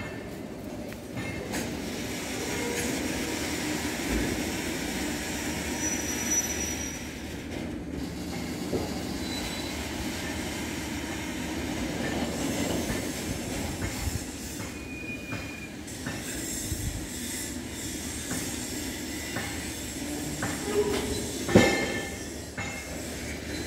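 Railway tank wagons of a goods train rolling slowly past at about 15 km/h: a steady rumble of steel wheels on rail, with brief high wheel squeals now and then and a sharp clank near the end.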